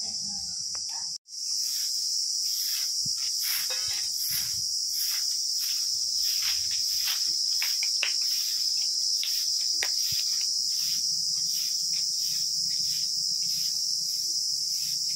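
Short bundle broom sweeping a bare dirt yard in quick, even strokes, about two a second, over a steady high drone of insects.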